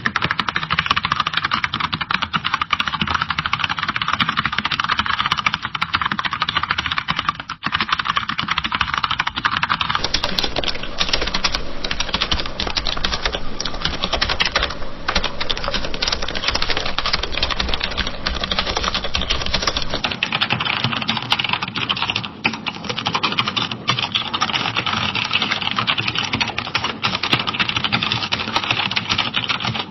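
Fast, continuous typing on a computer keyboard, a dense stream of key clicks. The sound changes character about ten and twenty seconds in, as three separate typing recordings follow one another.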